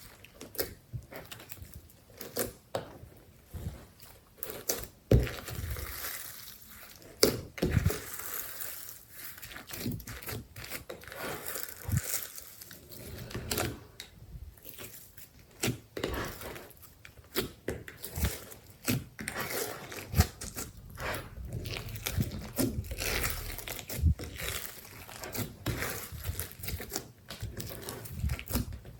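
Glossy slime being worked by hand, with irregular sticky clicks, pops and crackles as it is squeezed and pulled.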